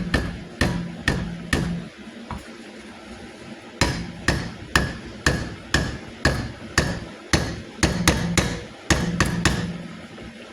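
A spoon knocking sharply against a cooking pot while the food is stirred. A few knocks come at the start, then a short pause, then about two a second.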